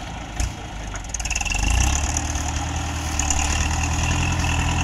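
An old John Deere tractor's engine running while it works a hydraulic grab loader lifting a bundle of sugarcane. A brief knock comes just under half a second in, and about a second in the engine gets louder, with a higher whine over it, and holds steady as the load is lifted.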